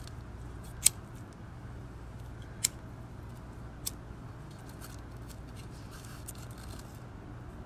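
A few sharp, short clicks or snaps, three clear ones about one, two and a half and four seconds in, over a faint steady low hum.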